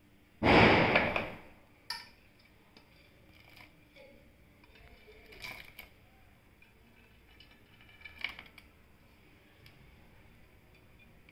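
Cooking-utensil handling at a pot of kheer: a loud clattering burst about half a second in that fades over a second, then a sharp click and scattered light taps and scrapes as chopped dry fruits are tipped from a plate into the pot.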